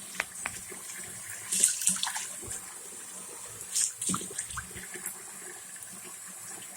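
Sink faucet running hot water into the basin: a steady hiss, with a few louder splashes about a second and a half in and again near four seconds.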